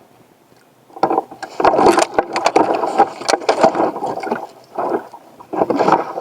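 Loud scraping, rustling and sharp knocks of an angler moving about in a small plastic fishing boat, starting about a second in and coming in bursts, as a fish takes the line.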